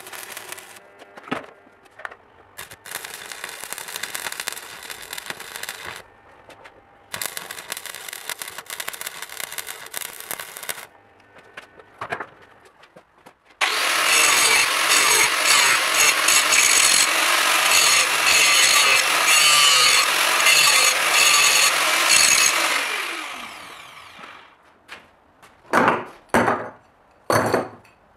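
Electric arc welding on steel clamp parts in a bench vise, crackling in runs of a few seconds. Then an angle grinder grinding steel for about nine seconds, loud and steady, before it spins down. Near the end come a few sharp metal clanks of steel clamps landing on a pile.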